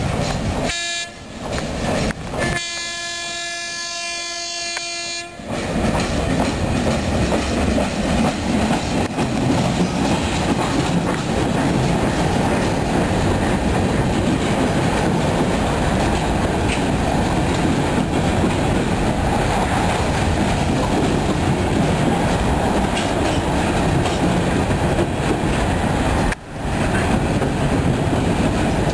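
A train horn blows for a few seconds near the start. Then a CSX freight train's hopper cars roll steadily through the grade crossing, with a loud wheel rumble and clickety-clack over the rails.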